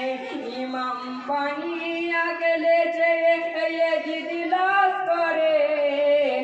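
Men singing a Bengali marsiya, a mourning elegy for Imam Hussain, unaccompanied, in long drawn-out notes that step up in pitch about a second in and fall back near the end.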